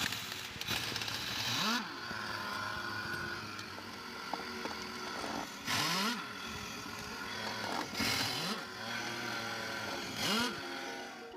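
Mercedes-Benz GL350d's engine running, its note rising in four short surges.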